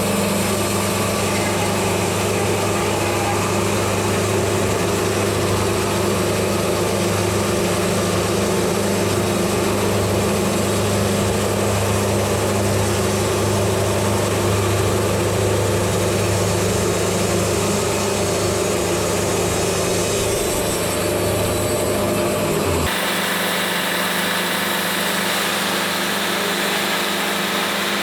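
Diesel engine of a Wood-Mizer LT70 Super Wide sawmill running steadily with a low hum. About 23 seconds in, the sound changes abruptly: the low hum drops away and a lighter, steady mechanical noise continues.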